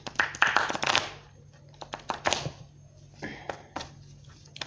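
A deck of tarot cards being shuffled by hand: a dense run of card rustling and flicking for about the first second, then scattered sharp snaps and taps of the cards.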